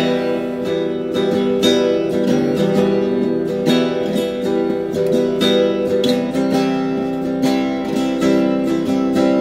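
Acoustic guitar strummed in a slow, steady rhythm: the instrumental opening of a song, before the singing comes in.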